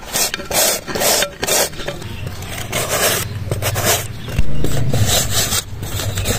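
Peeled bottle gourd grated on a flat stainless-steel hand grater: repeated rasping strokes, about two or three a second, as the flesh is shredded. A low hum runs underneath from about two seconds in.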